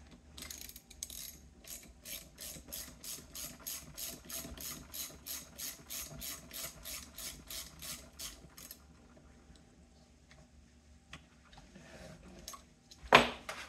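A ratchet wrench with a 13 mm socket clicking steadily, about three clicks a second, as it runs the puller bolt into the magneto rotor of a BMW R69S engine. The clicking stops about two-thirds of the way through, and there is a single loud knock near the end.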